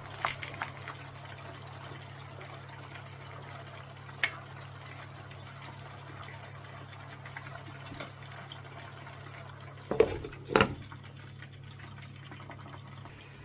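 Pots cooking on a stove: a steady hiss of steaming cabbage and plantain frying in oil under a lid, over a low steady hum. A few sharp knocks of a utensil or lid against a pot, two of them close together about ten seconds in.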